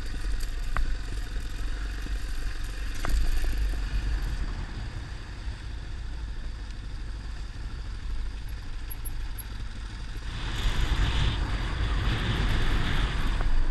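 Yamaha XT 600 single-cylinder motorcycle running on the move: a steady low rumble with a noisy hiss over it, which grows louder about ten seconds in.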